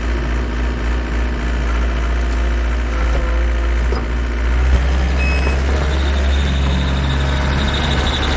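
Takeuchi compact track loader's diesel engine running steadily with a deep hum as the machine drives off on its tracks. A high whine joins in about six seconds in.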